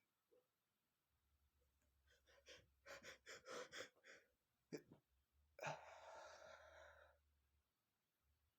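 A man takes a run of quick, building gasping breaths, then a sharp catch, then one loud sneeze about halfway through that trails off over a second and a half. The sneeze is brought on by sniffing red pepper.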